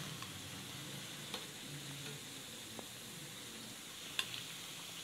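Corn vadais deep-frying in hot oil in a kadai, a steady sizzling hiss, with a few light utensil clicks as they are lifted out onto a plate; the sharpest click comes about four seconds in.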